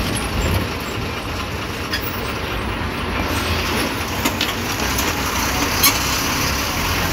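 Bus running along the road, its engine and road noise heard from inside the cabin, with a few sharp rattles or knocks; the loudest comes a little before six seconds in.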